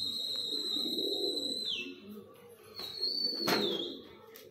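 A high, thin steady whistle that holds its pitch and then slides down near the two-second mark, followed by a shorter whistle that also falls away, with a sharp click in the middle of it; low dove-like cooing runs underneath.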